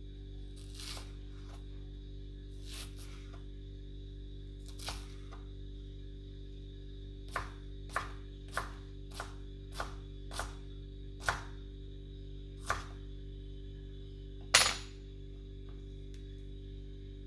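Sharpened hand planer blade slicing through an onion: about a dozen short, crisp cuts, coming quickly in a run through the middle, with the loudest near the end. A steady hum lies underneath.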